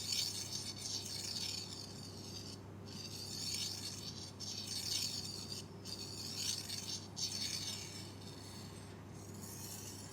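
Close-miked scratchy rubbing and rattling, an ASMR trigger, in repeated strokes broken by short pauses every second or two, over a steady low hum.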